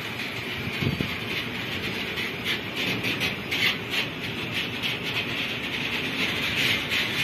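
Freight train of hopper wagons rolling slowly past, with a steady rumble of wheels on rail. There is a knock about a second in, and a run of short, high-pitched squeaks and rattles from the wagons through the middle.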